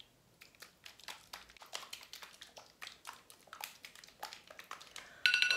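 Small plastic Poopsie milkshake cup of water and slime powder being shaken, giving faint, irregular sloshing and tapping. About five seconds in, a phone timer alarm starts ringing with a steady tone.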